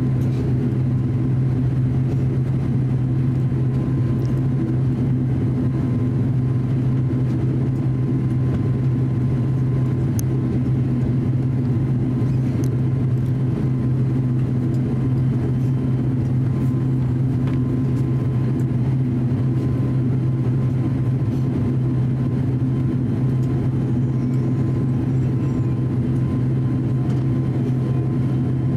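The ATR 42-600's twin turboprop engines and propellers running steadily during taxi, heard inside the cabin: an even low hum with a faint steady whine above it.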